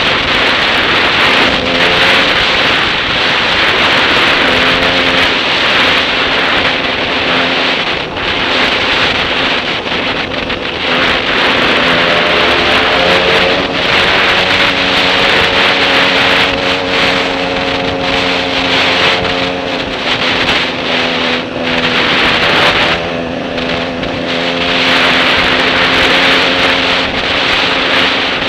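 Motorcycle engine running steadily at riding speed, its hum shifting slightly in pitch, under heavy wind rush on a helmet-mounted camera, with scattered knocks from bumps in the dirt road.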